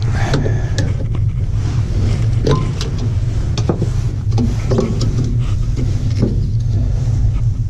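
Lennox gas furnace running with a steady low hum, while parts and tools are handled nearby with scattered clicks and knocks.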